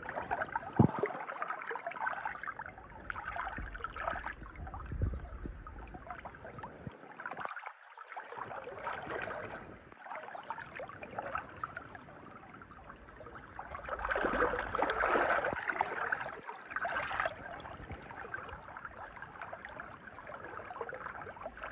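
Shallow river water splashing and gurgling, with scattered clicks and scrapes. A sharp click comes about a second in, and the water is busiest for a few seconds past the middle.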